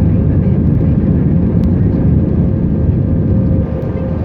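Cabin noise of an Airbus A319-131 during takeoff: its IAE V2500 turbofan engines make a loud, steady, deep rumble, with a steady fan tone running through it. The sound eases slightly about three and a half seconds in.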